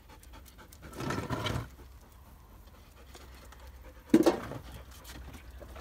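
Wooden pallet being lifted and propped against a wall: a scraping rustle about a second in, then a loud knock a little after four seconds as it meets the wall.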